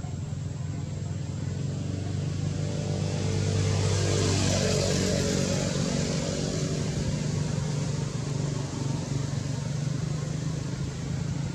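A motor vehicle's engine runs with a steady low hum. It grows louder and changes pitch about four to five seconds in as it passes close by.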